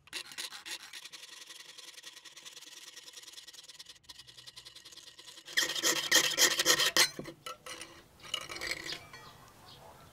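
Fine-toothed fret saw cutting through thin brass sheet in quick, even strokes, with a louder rasping stretch of about a second and a half just past the middle before the strokes trail off.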